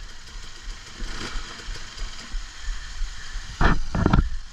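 Motorcycle engine idling at a low, steady rumble, with two short loud bursts close together near the end.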